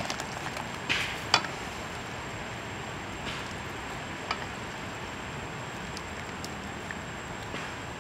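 Frog soup boiling in a wok over a wood fire, a steady bubbling hiss, with a few sharp clicks, the loudest about a second and a half in.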